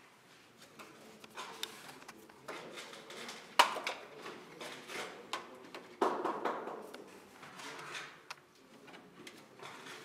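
Clatter of hand work with tools and containers: scattered knocks and clinks with some scraping and rustling. The loudest is a sharp knock about three and a half seconds in, and another comes at about six seconds.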